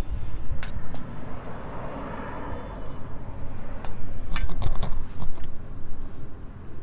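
Scattered clicks and taps of a spoon against a food container as a meal is opened and eaten, over a steady low rumble.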